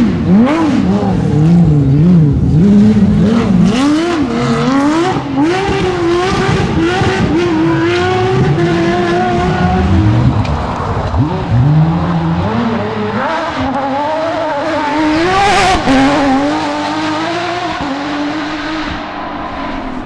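Rally car engines at full throttle as the cars pass: a Porsche 997 GT3's flat-six revs hard, its note jumping up and down with gear changes and lifts. About halfway through, another rally car's engine climbs in pitch, holds a steady note and fades near the end.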